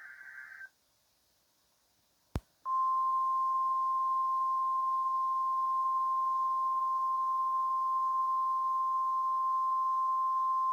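NOAA Weather Radio EAS warning opening: the tail of a short SAME data burst, a single click, then the 1050 Hz warning alarm tone starting about three seconds in, one steady high tone held without a break.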